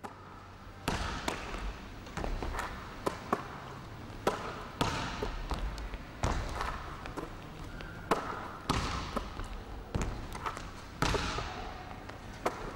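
Basketballs bouncing on a hardwood gym floor: irregular sharp thuds, each echoing through the large hall.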